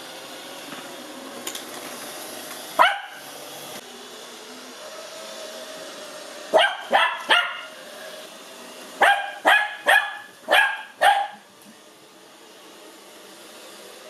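Lhasa Apso puppy barking in high, sharp yaps: one bark about three seconds in, then a quick run of three and later a run of five. Under the barks an Ecovacs Deebot robot vacuum runs steadily.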